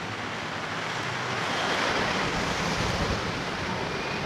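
Wind blowing across a camcorder microphone: a steady rushing hiss that swells about two seconds in and eases off toward the end.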